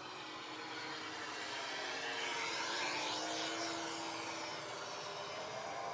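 Radio-controlled FMS P-40B warbird flying past overhead: its electric motor and propeller together with the onboard sound system's simulated piston-engine sound. It grows louder to a peak about three seconds in, then eases off as the plane passes.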